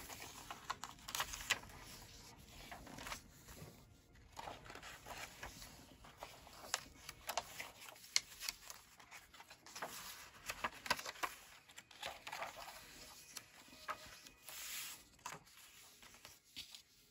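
Paper pages of a handmade junk journal being turned and handled: scattered soft rustles, crinkles and light taps.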